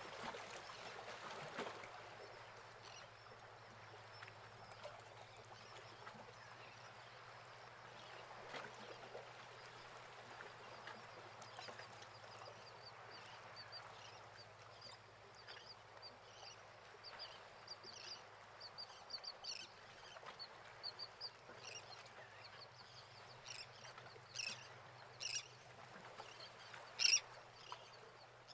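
Birds calling: many short, high chirps that grow more frequent in the second half, with a few louder calls near the end, over a faint steady low hum.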